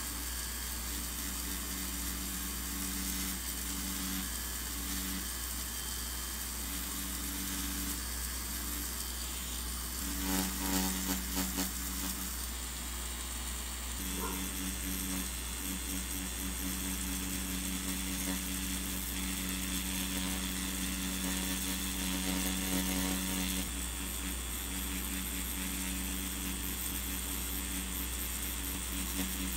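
Rotary tattoo pen with a cartridge needle buzzing at a steady pitch while lining ink into synthetic practice skin. It runs in short stretches with brief pauses, louder for a moment about ten seconds in, then without a break over the second half.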